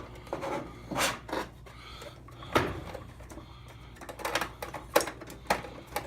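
Replacement wash-temperature rotary switch being twisted and pushed into a washer's plastic control panel: irregular plastic clicks and knocks as it catches and gets hung up instead of turning into place.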